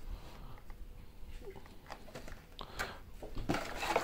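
Faint rustling and a few light clicks of foil trading-card booster packs being handled over a plastic tray, a little busier in the second half.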